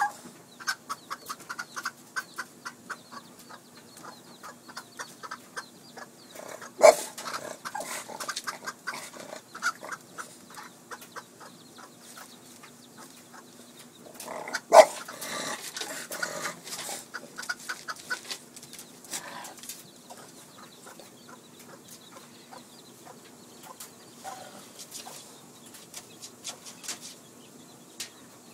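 A mother hen guarding her chicks clucks in quick runs of short calls, several a second. Two sudden loud knocks come about seven and fifteen seconds in, over a faint steady hum.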